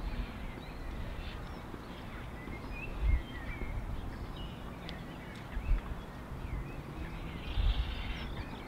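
Small birds chirping and twittering in the lineside trees over a steady outdoor hiss. Several low, dull thumps come at about three, six and eight seconds in.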